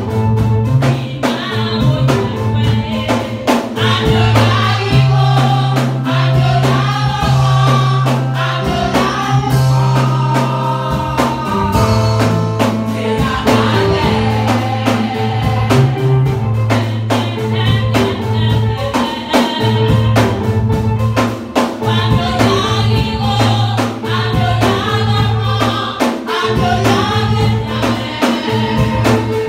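Youth gospel choir singing an upbeat song together over a steady bass line and drum beat.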